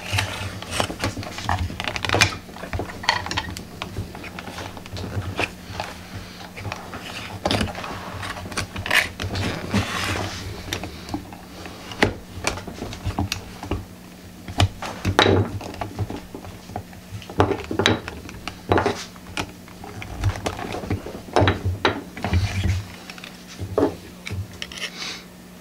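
Irregular clicks, taps and scrapes of a wooden-handled steel tool working a heavyweight copper strip against a wooden forming jig, bending the copper by hand into a lion-shaped cookie cutter. A steady low hum runs underneath.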